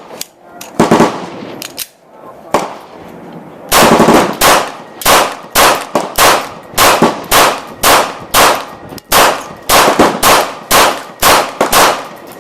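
A Glock 19 9mm pistol firing 115-grain Tula rounds: two quick shots, a pause of a few seconds, then a steady string of shots at about two a second, each a sharp crack with a ringing tail.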